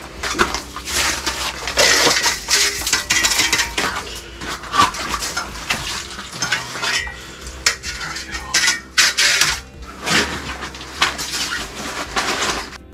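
Hard gear clattering and rattling, with many quick knocks, as a big northern pike is handled and a bump board is laid out on the ice to measure it.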